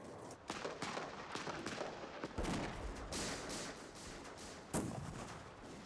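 Irregular battle gunfire: scattered shots and short bursts, with two heavier, deeper reports about two and a half seconds in and about five seconds in.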